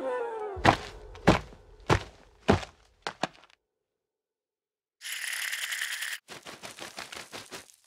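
A flute note glides downward as the animated bird falls. Then come four heavy landing thuds about half a second apart, each weaker than the last, and two small taps. Near the end there is a short hiss, then quick, light pattering footsteps as the cartoon bird sets off running.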